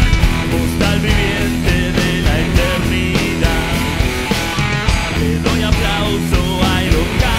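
Rock band playing live: electric guitar over bass and drums with a steady beat.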